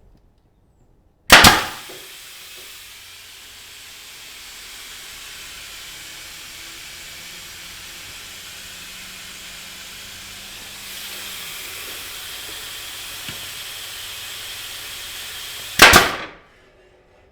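Two loud, sharp pneumatic bangs about fourteen seconds apart, with a steady hiss of escaping compressed air between them, a leak in the air system.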